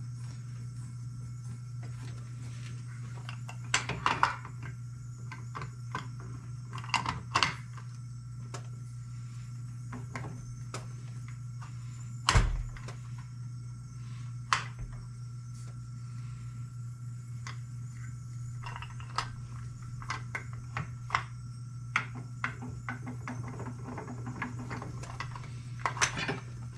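Scattered clicks and knocks of metal engine parts being handled as a clutch and fan housing is worked onto a small two-stroke engine. The loudest is a heavier knock with a thud about halfway through. A steady low hum runs underneath.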